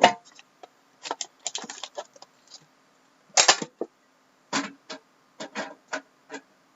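Packaging being opened and handled by hand: irregular short crinkles, rustles and clicks of wrappers and cardboard, with a louder burst of crackling about three and a half seconds in.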